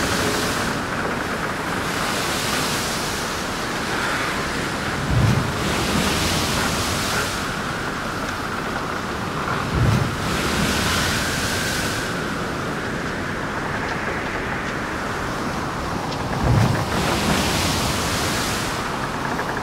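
Steady rushing noise with a faint wavering whine from a hovering camera drone, and about four times a low thump followed by a couple of seconds of hissing wash.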